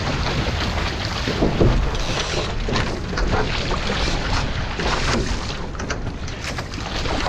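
Wind buffeting the microphone over water rushing past the hulls of a Nacra 15 sailing catamaran under way.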